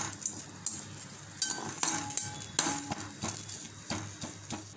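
A utensil stirring and scraping against a kadai as Indian borage (omavalli) leaves and small onions are dry-sautéed without oil, with irregular clinks of metal on the pan.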